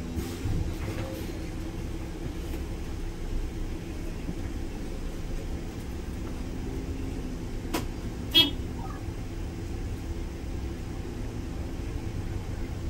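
Inside the cabin of an MAN Lion's City articulated bus with a biogas engine pulling away: a steady low engine drone under road noise. A short, sharp beep sounds about eight seconds in.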